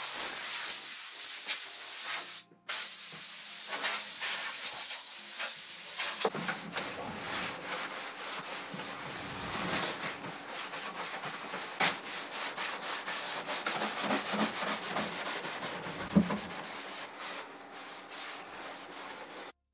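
Compressed-air line hissing as it blows dust off sanded oak, with a short break about two seconds in. After about six seconds the air stops and a cloth rubs and wipes over the wood, with a couple of sharp knocks.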